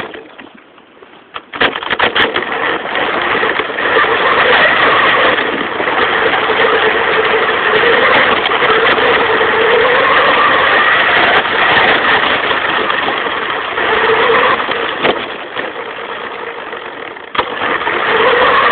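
Motor of a small Redcat RC car running close by, coming in loud about a second and a half in. Its pitch wavers up and down with the throttle, and it drops in level for a moment near the end before picking up again.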